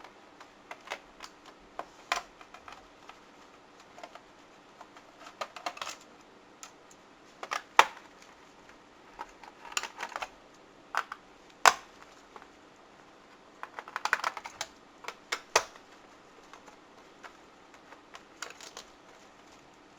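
Irregular sharp clicks and taps of a screwdriver and small screws against a laptop's plastic casing as the last screws are taken out, with a brief flurry of rattling clicks about two-thirds of the way through.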